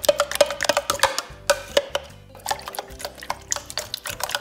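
Thickening guar-gum slime being stirred after more activator liquid is added, making quick irregular wet clicks and pops. Background music plays throughout.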